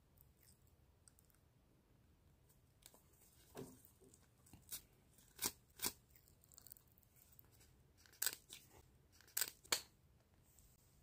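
Thin paper sticker wrapper crinkling and crackling in the hands as a collectible peel-off sticker is slid out and the wrapper put down. About seven short, sharp crinkles, several coming in quick pairs, in the middle and near the end.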